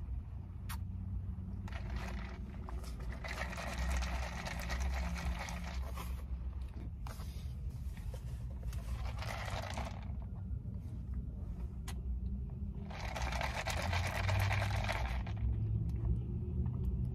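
Sucking an iced drink up a wide straw: three long slurping draws, the first two to three seconds in, another in the middle and one more near the end, over a steady low rumble in the car.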